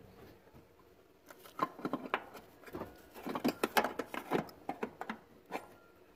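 Quick run of small clicks, knocks and rattles of a clutch master cylinder, its plastic fluid reservoir and pushrod being handled and worked free of the firewall by hand, starting about a second in.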